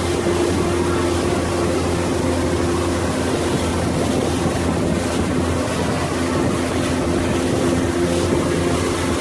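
Pontoon boat's motor running steadily at towing speed, a constant low hum mixed with the rush of water from the boat's wake.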